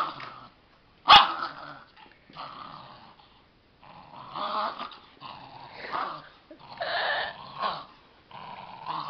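A 13-year-old dachshund growling in repeated rough bursts as it tugs on a rope toy, with one loud, sharp bark about a second in.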